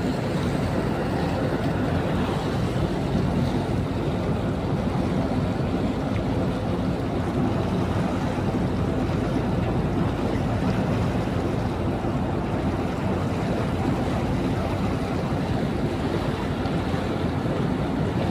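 Tugboat under way: a steady engine drone mixed with the churning of propeller wash at the stern, with wind on the microphone.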